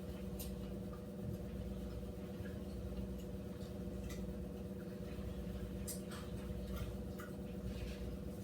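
Room tone: a steady low appliance hum with faint scattered clicks and ticks.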